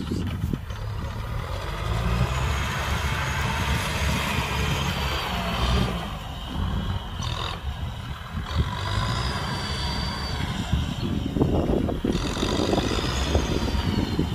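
Kubota M6040 tractor's diesel engine running steadily while it pulls a disc plow through wet paddy soil.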